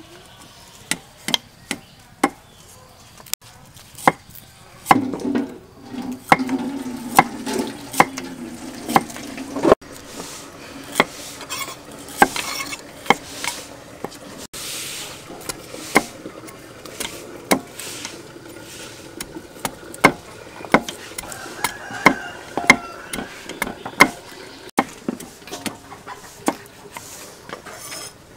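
Knife blade tapping on a wooden chopping block as vegetables are sliced by hand: irregular sharp knocks, several a second at times.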